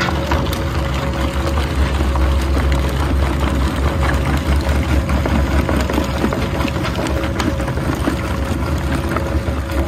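VS-2260 plastic shredder running under load as its cutters draw in lumps of white plastic: a steady low motor drone with a constant hum, overlaid by continual cracking and crunching of plastic being cut.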